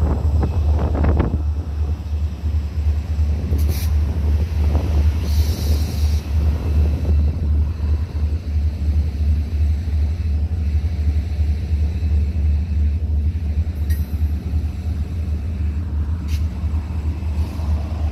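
Freight train rolling across a steel girder railway bridge just overhead: a steady, deep rumble with a few sharp clanks and a short high hiss.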